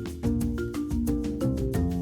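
Background music: a light, rhythmic tune of mallet-struck notes, vibraphone- or marimba-like, over a steady beat.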